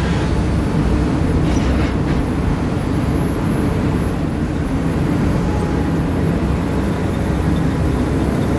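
Excavator's diesel engine and hydraulics running steadily, heard from inside the operator's cab: a continuous low rumble with a thin, steady high whine above it.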